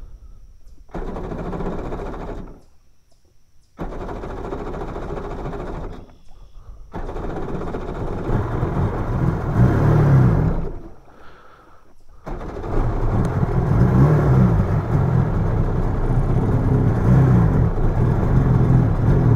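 A 1999 Sea-Doo GTX Limited's two-stroke engine being started: it catches about a second in, dies out, is restarted, sags twice more, then keeps running and revving from about two-thirds of the way through. It runs rough and won't hold idle, which the owner thinks is down to the carburettor's low-speed jets.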